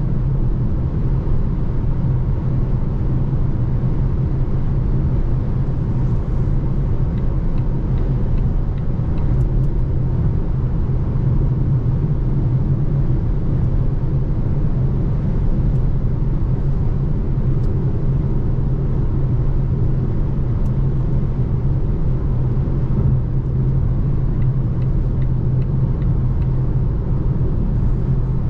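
Steady road and tyre rumble heard inside the cabin of a Volvo C40 Recharge Twin electric car while it drives, with no engine note.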